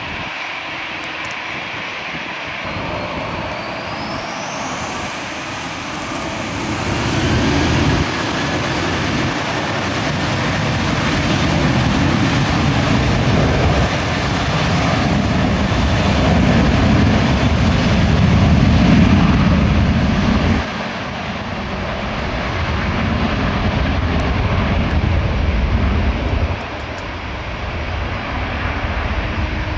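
Boeing 737-800's CFM56-7B turbofans spooling up to takeoff thrust: a whine rises in pitch over a few seconds, then gives way to the loud low rumble of the takeoff roll. The rumble dips suddenly twice later on.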